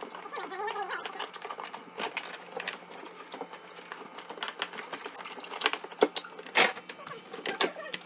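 Fast-forwarded clatter of plastic and foam parts being handled inside a refrigerator's lower compartment: rapid clicks and knocks, with two louder knocks about six and six and a half seconds in.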